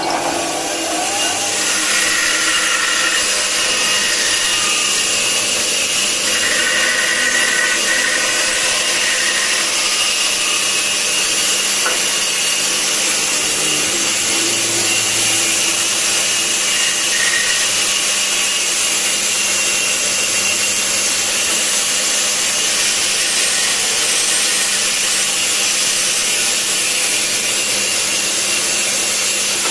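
Band saw running steadily, its blade cutting the wood of a cricket bat blank, with a continuous hum and hiss and a brief higher whine a few times in the first ten seconds.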